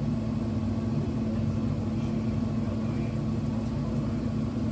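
Steady low machine hum with one constant pitch and an even rumble under it, unchanging throughout.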